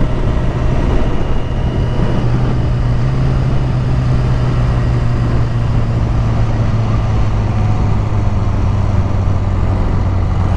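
Honda CBR1000RR's inline-four engine running at a steady pace through a full titanium exhaust while riding, its pitch easing slightly lower partway through, over a constant rush of wind noise.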